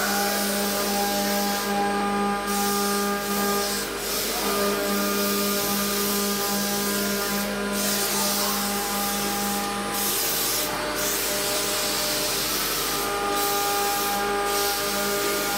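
CNC router's 9 kW spindle running steadily, its bit cutting a curved profile into a wooden panel: a constant humming whine under a continuous hiss of wood being cut.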